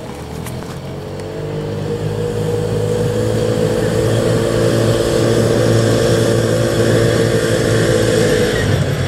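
Engine of an old petrol golf cart running at a steady speed, getting louder over the first few seconds as the cart drives closer, then holding.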